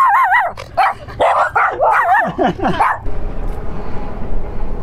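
Small dogs yipping and whining, high wavering cries with some falling yelps, that stop about three seconds in; a steady low rumble follows.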